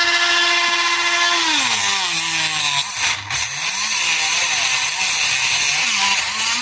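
Parkside rotary tool with a small cut-off disc, running at a steady high pitch, then bogging down to a much lower, wavering pitch from about a second and a half in as it cuts into the heater element's metal pipe. Near the end it speeds up again as the disc comes free.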